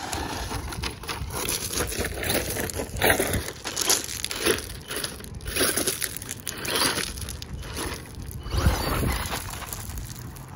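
Electric RC buggy tearing over loose gravel: the tyres crunch and spray stones in repeated surges as it accelerates and turns.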